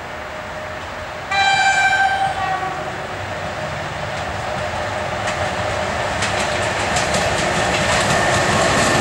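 EP1M electric locomotive sounds one horn blast of about a second, about a second in. Then its passenger train's running noise grows louder as it nears, with wheels clicking over rail joints.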